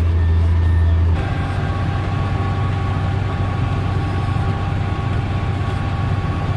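Tractor engine running steadily, heard from inside the cab. About a second in, the deep hum changes to a steady drone with a few high whining tones.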